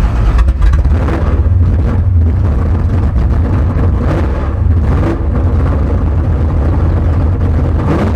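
Big-block Chevy V8 with a tunnel ram intake, running loud with a heavy low rumble that swells and dips unevenly.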